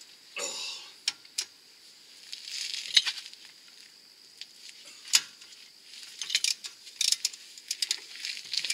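Half-inch-drive hand ratchet on socket nuts behind a steering knuckle: scattered sharp metal clicks and clinks, then quick ratcheting ticks near the end as the loosened nuts are turned off.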